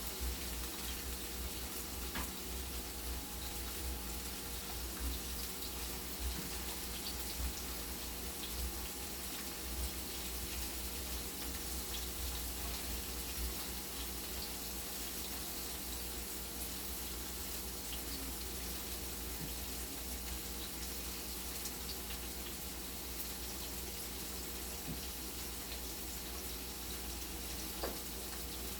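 Steady sizzling of food frying in hot oil in a frying pan, with small scattered pops.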